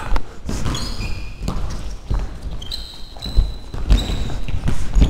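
Sports shoes squeaking briefly on a sports-hall floor several times during indoor football, over repeated dull thuds of running feet.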